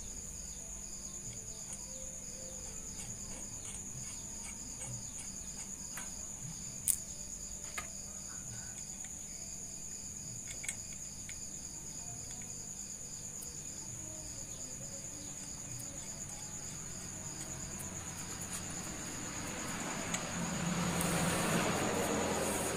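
Steady high-pitched chirring of crickets, with a few light metallic clicks as clutch springs and bolts are set by hand onto a motorcycle clutch pressure plate, the sharpest about seven seconds in. Near the end a broad rushing noise swells up.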